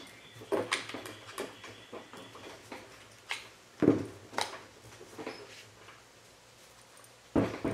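Scattered clicks and knocks of a GForce GF2P 12-gauge pump shotgun being handled on a workbench mat during reassembly. The loudest knock comes about four seconds in, and another sharp knock comes near the end.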